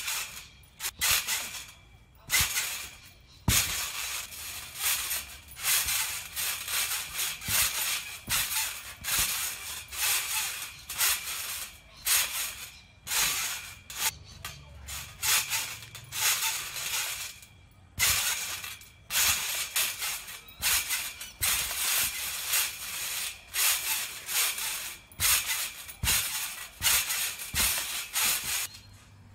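Trampoline springs and mat sounding with each bounce: a short noisy burst at every landing, about one a second, with an occasional sharper knock.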